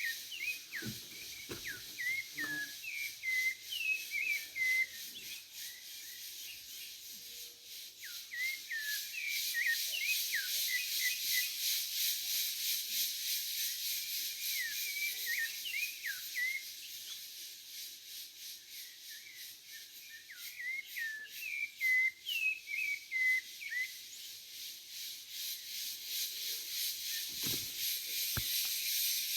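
A sabiá thrush singing bouts of short, varied whistled phrases over the continuous high, pulsing buzz of cicadas. A few faint low thumps come near the start and again near the end.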